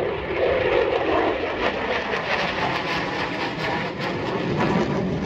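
F-16 fighter jet passing with a loud, steady jet engine roar that turns rough and crackling about two seconds in.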